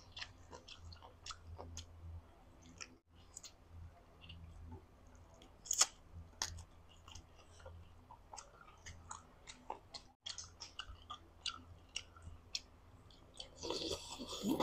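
Close-miked chewing of boiled chicken: quiet, irregular wet smacks and clicks of the mouth and lips. Near the end comes a longer, denser stretch of mouth noise as a piece of bamboo shoot goes into the mouth.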